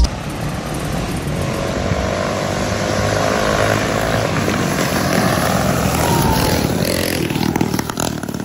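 A small engine running steadily, slowly growing louder, then dropping away near the end with a few sharp clicks.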